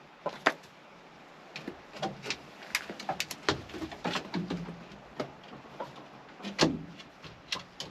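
Chickens clucking and shuffling in a coop, with scattered irregular knocks and creaks; the loudest knock comes near the end.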